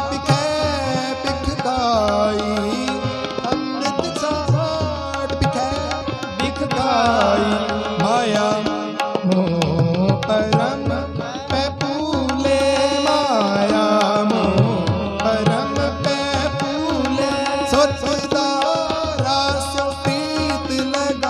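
Sikh shabad kirtan: a tabla plays a steady rhythm under harmonium, with a man's voice singing the melody.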